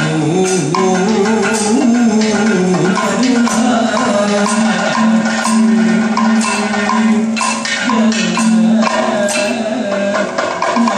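Kathakali accompaniment music: steady drumming on a maddalam barrel drum with crisp, regular time-keeping strikes, and a singer's wavering voice in the first few seconds.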